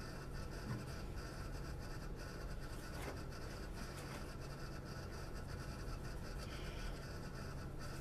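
Dry-erase marker writing on a whiteboard: a run of short, faint strokes and light squeaks as letters are written, over a steady low hum.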